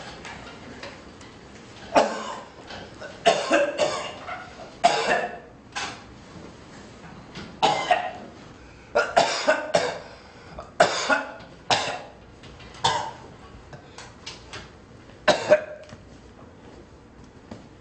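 A man's acted coughing on cue: a long run of short, harsh coughs, often two or three in quick succession, with brief pauses between the fits.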